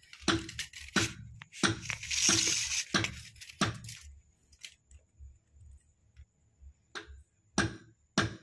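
Close handling noise as a ruler is set against a PVC drain pipe: a run of knocks and a scrape in the first half, then a quiet stretch with a few sharp clicks near the end.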